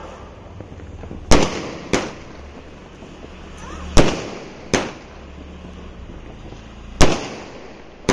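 Multi-shot aerial firework cake firing, its shells bursting in the sky with sharp bangs. Each loud bang is followed by a weaker one well under a second later, and a pair comes roughly every three seconds.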